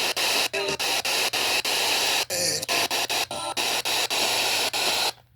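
FM radio static: a loud hiss broken by many brief dropouts, with short snatches of a station's audio coming through now and then. It cuts off suddenly near the end.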